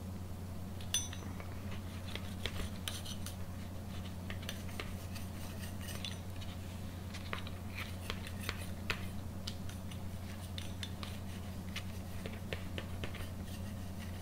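Pizza cutter wheel rolling and pressing through a flour-tortilla quesadilla onto a paper plate: scattered crisp scrapes and clicks, stroke after stroke.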